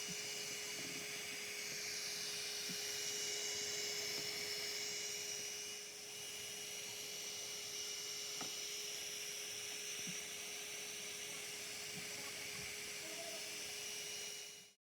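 Prusa i3 3D printer running a print: a steady hum under a high whine that wavers up and down in pitch, with a few faint ticks.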